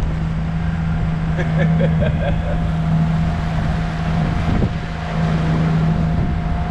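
Speedboat engine running steadily at one even pitch.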